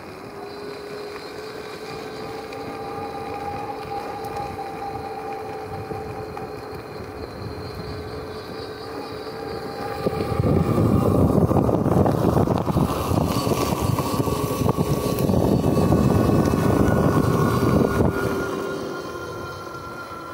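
Rad Power Bikes RadRunner e-bike's rear geared hub motor whining steadily under power as it rides along the road, with tyre and road noise. From about ten seconds in to about eighteen, a much louder rushing rumble, like wind on the microphone, swells over it and then fades.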